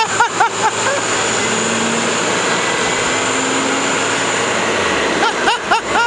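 Nova Bus LFS articulated city bus running under load, its drive wheels spinning in packed snow and stuck. A quick run of short high squeaks comes in the first second and again near the end.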